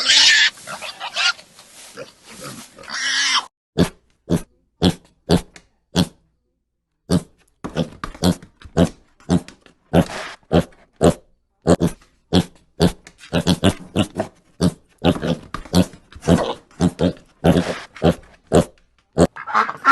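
An animal giving short, separate grunts in a steady series, about three or four a second.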